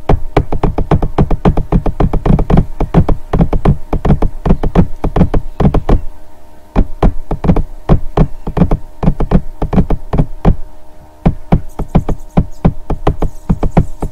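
Electronic background music: a fast, steady beat over held synthesizer chords, thinning out briefly twice.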